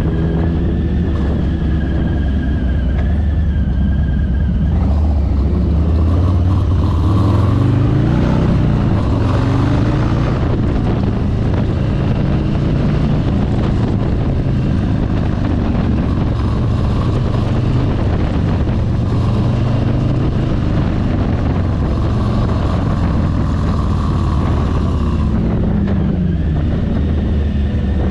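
Cruiser motorcycle's engine running under way with wind and road noise: the engine note climbs as the bike accelerates about a third of the way in, holds at cruising speed, and drops away as it slows near the end.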